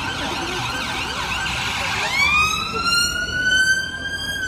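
Emergency vehicle siren sounding: a fast wavering pattern, then about two seconds in a long wail that climbs slowly in pitch.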